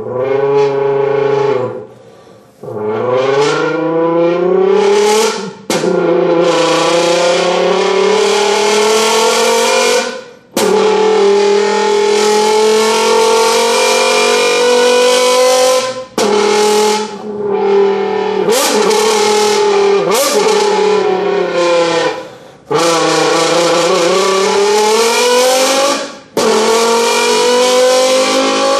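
Vocal imitation of a V10 engine made with the voice, tongue and a dented empty beer can. The pitch climbs steadily as if revving through the range, then breaks off and starts again lower several times, like gear changes.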